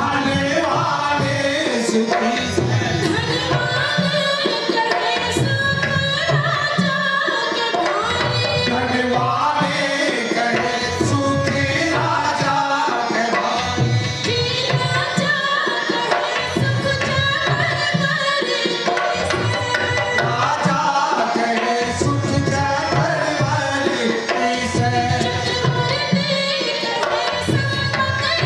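Live Haryanvi swang folk music: a hand drum keeps a steady beat under harmonium and a melody line, with singing.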